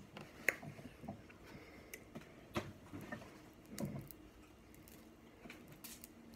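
Snow crab leg shell being cracked and pulled apart by hand: a few scattered sharp clicks and crackles, quieter toward the end.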